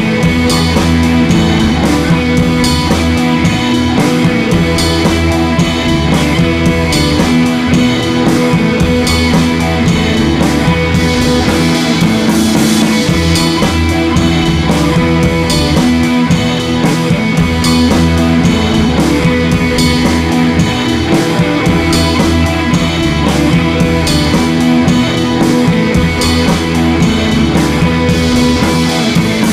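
Background rock music with guitar and drum kit, playing at a steady level.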